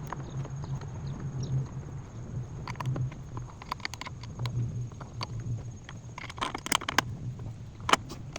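Irregular clusters of light metallic clicks and taps from a hood-latch bolt being tightened with a wrench, densest near the end.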